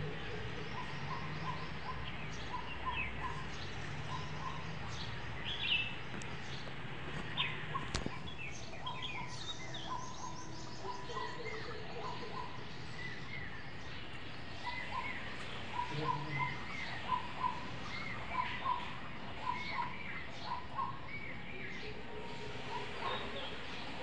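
Birds chirping: many short, repeated notes, busiest in the second half, over steady outdoor background noise.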